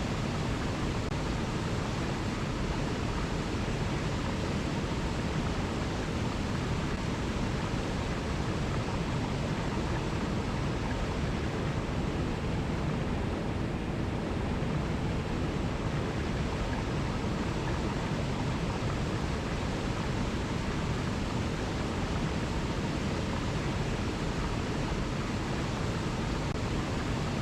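Mountain river rushing over rocks in cascades: a steady, even rush of water.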